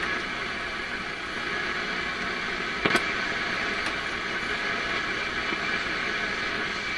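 PYE 39HC valve shortwave receiver hissing with band noise through its loudspeaker while being tuned for a station. There is a sharp crackle of static about three seconds in and a fainter one just after.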